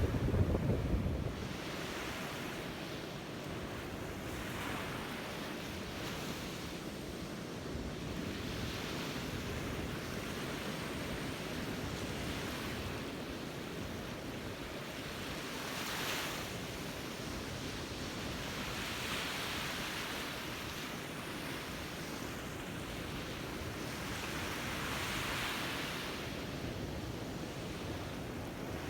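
Sea surf washing onto a beach, swelling and easing every few seconds. Wind buffets the microphone with a low rumble during the first second or so.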